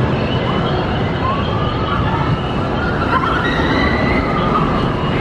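A ride train rumbling steadily along its track, with high wavering whines gliding up and down over the rumble.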